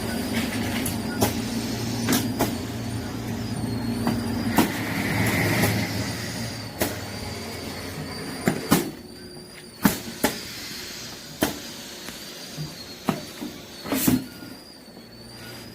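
Makgeolli bottle-filling line running: a steady motor hum with irregular clicks and knocks of the mechanism, and a short hiss of air about five seconds in. The hum drops away about eight seconds in, and the clicks carry on.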